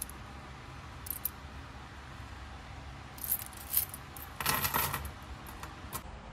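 Copper US pennies clinking against each other in a gloved hand and being set down in a pile on a wooden tabletop: scattered metallic clinks, with the loudest, densest jingle about four and a half seconds in.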